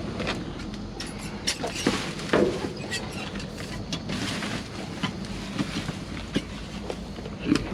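Rummaging through discarded items: irregular rustling, crinkling and clicking as packaging, paper and plastic are handled and moved, over a steady low background hum.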